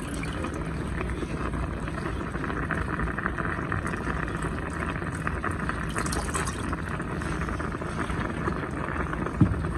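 Pot of fish and vegetable soup boiling steadily, a continuous fine crackle of bubbles under a lid of sweet potato leaves. A single short knock near the end.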